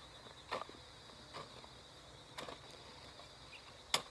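A hoe chopping into soil four times at uneven intervals, the last strike the loudest, over the steady high chirring of insects.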